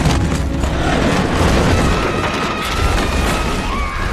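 Film sound effects of an earthquake's aftermath: a heavy low rumble with crashing and falling debris. A high held tone comes in about two seconds in and carries on over the rumble.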